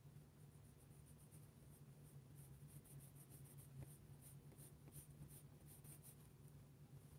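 Graphite pencil scratching faintly on paper in short strokes as a line is drawn, over a steady low hum.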